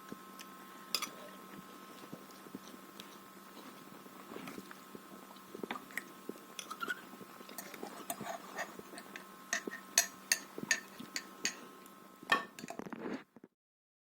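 A meal of dumplings being eaten: forks clicking against plates and chewing, with sharp clicks coming thicker in the second half. A faint steady hum runs underneath, and the sound cuts off suddenly near the end.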